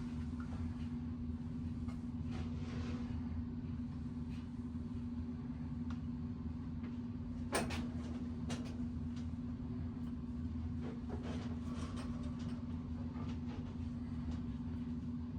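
Steady low background hum with a few sharp clicks and knocks from bicycle parts and tools being handled, the loudest knock about halfway through and another a second after it.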